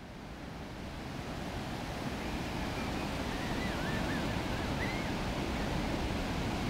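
Ocean surf washing steadily onto the beach, with wind buffeting the microphone, fading up over the first few seconds.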